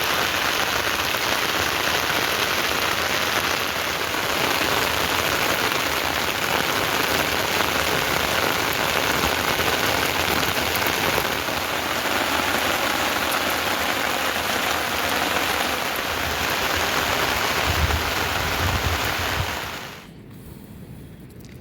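Heavy rain falling steadily, a dense even patter that cuts off suddenly near the end.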